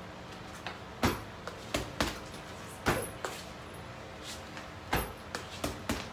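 Boxing-gloved punches landing on an Everlast heavy bag: about four loud thuds at uneven intervals, with softer knocks in between.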